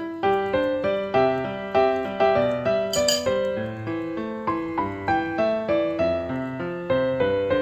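Background piano music, with notes struck about two a second. A brief noise sounds about three seconds in.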